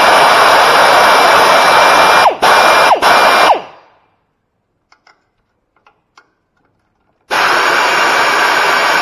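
A handheld power tool running steadily with a thin whine. It is let off and winds down briefly twice, then stops about three and a half seconds in, leaving near silence with a few faint clicks. It starts again abruptly near the end.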